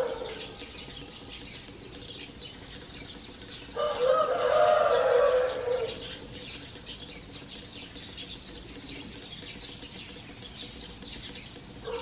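Dawn chorus of many small birds chirping without pause, with a rooster crowing once, loudly, for about two seconds, about four seconds in.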